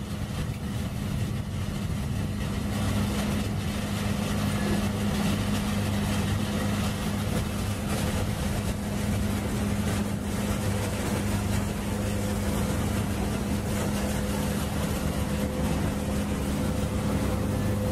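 Steady engine drone: a constant low hum under an even rush of noise, with no change in pitch or speed.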